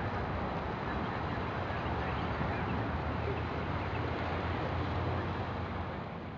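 Distant steady drone of a B-29 Superfortress's four Wright R-3350 radial engines as it rolls along the runway. The sound fades out near the end.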